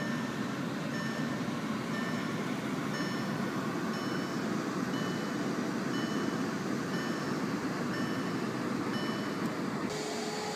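A 2011 Volkswagen Jetta SportWagen's 2.0-litre turbodiesel idling, heard from inside the cabin, while a dashboard warning chime beeps about once a second. The chime's pitch steps higher a couple of seconds in. Near the end the sound changes abruptly to a thinner steady hum.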